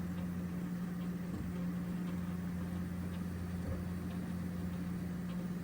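Original Prusa MK4 3D printer printing a first layer, a steady hum with faint ticks. It runs smoothly, the first-layer noise cured by retightening the loose hotend screws.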